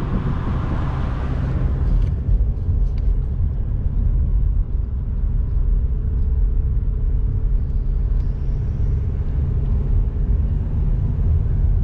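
Small car driving along, its engine and tyres making a steady low rumble. A hiss on top stops about two seconds in.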